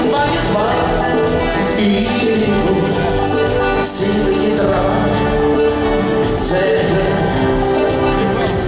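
Rock band playing live: guitar and other instruments over a steady drum beat, without clear singing.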